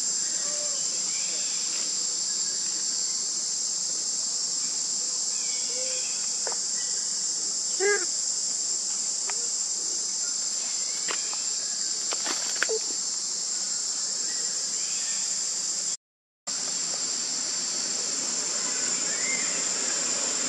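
Steady high-pitched drone of forest insects, with a few short calls that bend in pitch, the loudest about the middle, and a few faint clicks. The sound drops out for half a second about three-quarters of the way through.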